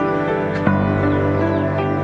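Background music: soft, new-age-style held chords, with a new chord struck about two-thirds of a second in.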